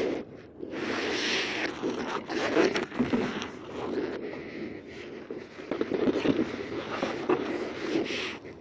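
Fishing reel being cranked to retrieve line: a rough, scraping whir that comes and goes in uneven pulses.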